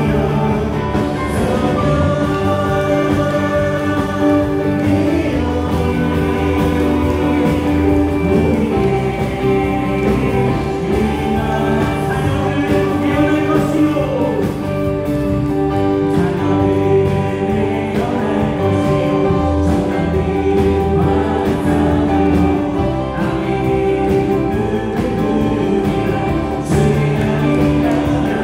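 Live worship band playing a praise song: electric guitar, bass guitar and keyboards with drums, and a group of voices singing along.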